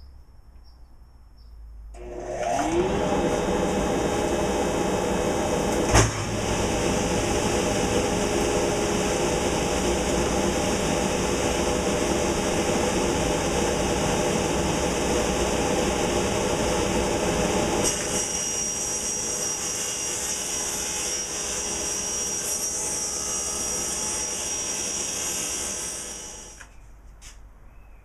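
Delta table saw starting about two seconds in, its motor rising to speed, then running steadily while ripping a plywood sheet, with a sharp knock about six seconds in. The sound thins out about eighteen seconds in, and the saw is switched off and winds down near the end.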